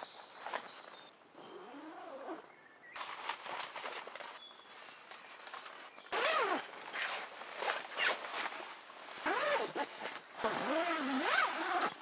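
Camouflage tent fabric and door flap being handled: bursts of rustling with short rising-and-falling rubbing squeaks, busier in the second half.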